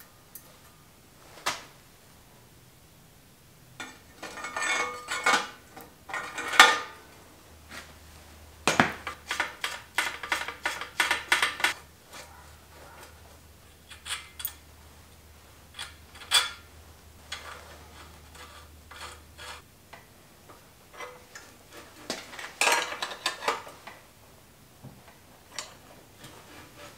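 Bicycle headset parts, metal bearing cups and bearings, clinking and clicking as they are handled and seated in a steel frame's head tube, in several clusters of quick metallic ticks.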